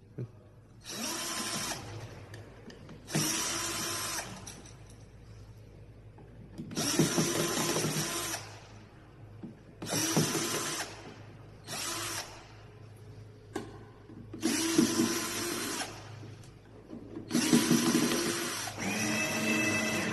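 A small electric motor whirring in about eight short bursts of roughly a second each, spinning up and winding down each time.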